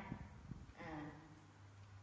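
Mostly quiet, with a few faint clicks and one short voice sound a little under a second in.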